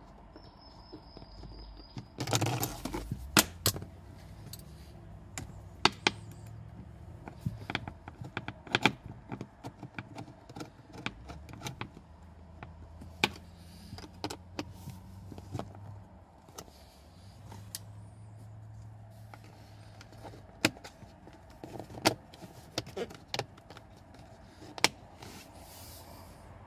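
Scattered clicks, knocks and scraping of a screwdriver and hard plastic trim as a Mercedes W124 dashboard speaker grille and its trim strip are fitted and pressed into place, with a brief scrape-and-rustle flurry about two seconds in.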